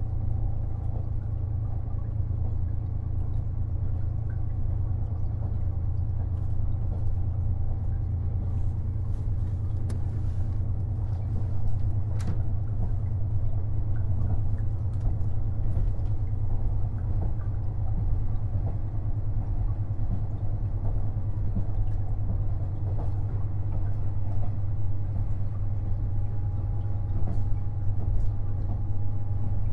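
KiHa 48 500-series diesel railcar running, heard from on board: a steady low diesel drone with scattered clicks and knocks from the running gear on the track. A faint steady whine joins in near the end.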